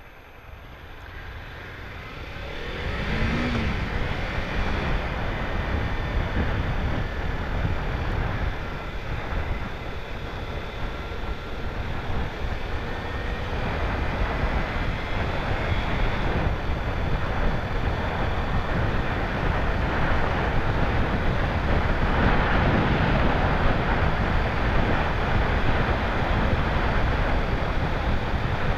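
Kawasaki Ninja 300's parallel-twin engine pulling away and building speed, getting louder over the first three seconds. After that a steady loud rush of wind and road noise over the motorcycle's microphone covers the engine.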